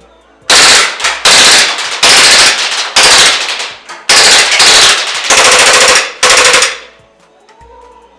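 WE 18C Gen 4 gas blowback airsoft pistol firing on full auto. It fires seven short bursts, each a fast, loud rattle of shots, with brief pauses between them.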